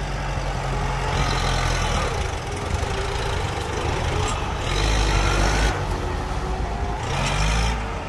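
Farm tractor's diesel engine working under load as its front dozer blade pushes into a mound of earth. The engine note swells twice, about five seconds in and again near the end.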